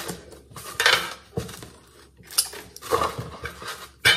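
Pieces of a broken glass vial and a small metal tin clinking and rattling as they are handled, in several short bursts about a second apart, the sharpest near the end.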